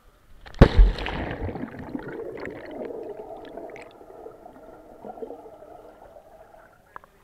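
A splash as the camera plunges under the surface of a swimming pool about half a second in, then muffled underwater sound with air bubbles from exhaled breath gurgling past, fading out near the end.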